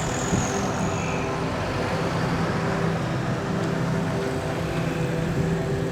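Motor vehicle engine running steadily amid street traffic noise.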